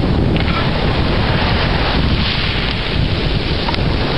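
Storm wind and rain from a passing tropical depression: the wind rumbles on the microphone over a steady, loud rush of rain.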